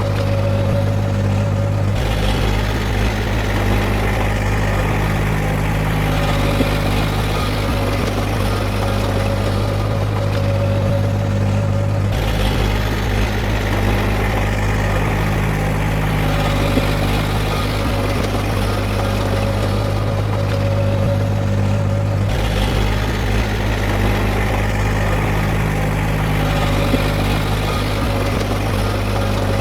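Heavy diesel engine of earthmoving equipment running steadily with a strong low hum. The sound goes through the same pattern about every ten seconds.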